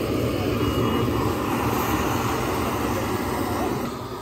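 Steady roar of a gas stove burner under a pan of cooking omelette batter.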